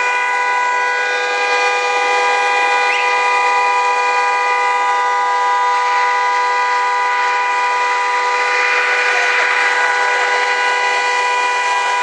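A horn blaring without let-up, one steady two-note chord that never changes pitch, over a constant noisy hiss.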